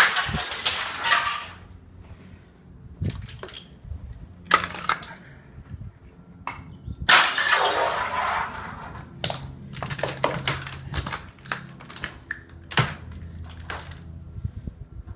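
Ice being broken up: a loud crash of cracking and shattering ice right at the start and another about halfway, with several smaller sharp cracks between and after.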